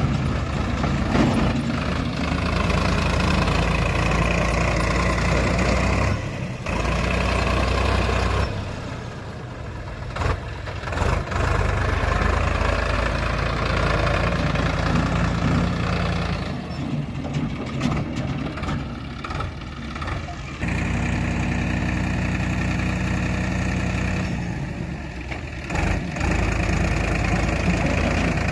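Diesel engine of heavy machinery idling steadily, its low note dropping out and coming back abruptly several times.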